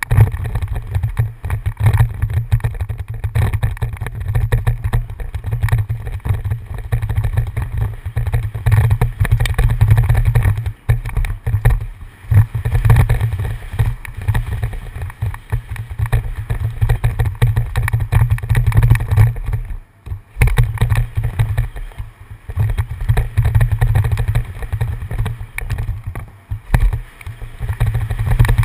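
Wind buffeting a helmet-mounted camera's microphone on a fast mountain-bike descent: a loud, uneven low rumble. Over it runs the rattle and knocking of the bike and its tyres over the rough dirt trail.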